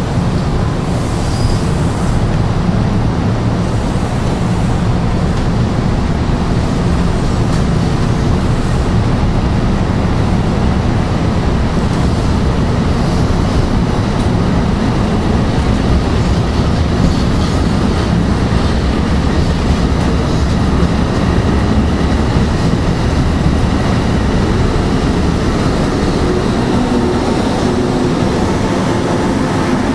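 NJ Transit Multilevel bilevel coaches rolling past at close range, a steady, even rumble of wheels on rail and car bodies.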